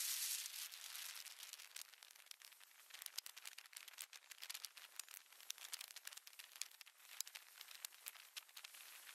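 Near silence, with faint, scattered crackling clicks and a light hiss.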